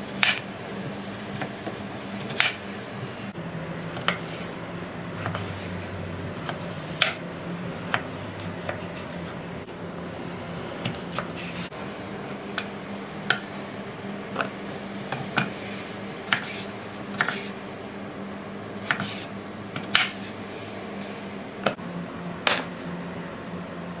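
Chef's knife cutting through a raw potato and knocking on a wooden cutting board: irregular sharp knocks about every second or two, slicing it into sticks.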